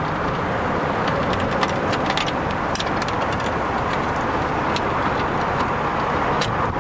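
Steady running noise of a vehicle, with light scattered clicks and taps of a small metal bracket and its screws being handled.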